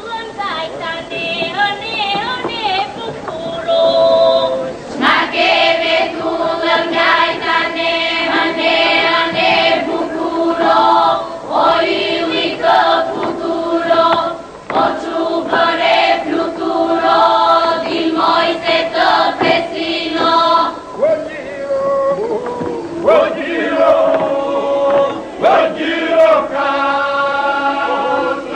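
A choir singing an Albanian folk song in Gjirokastër polyphonic style, the voices moving over a steady held drone. The singing is quieter at first and comes in fuller about five seconds in.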